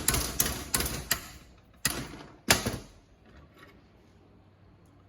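Hammer blows on metal: a quick run of strikes, about three a second, then two more spaced blows, then it stops.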